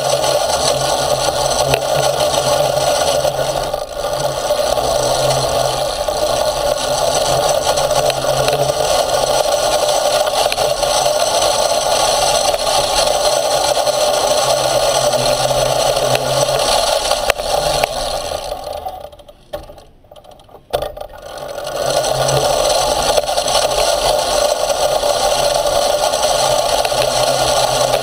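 Motor of a motorized off-road skate running steadily, with rattling and scraping as it rolls over a dirt trail. About two-thirds of the way through the sound falls away for about two seconds, then picks up again.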